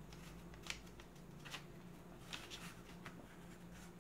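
Black Pentel oil pastel scraping across paper in a few short, faint strokes, over a low steady hum.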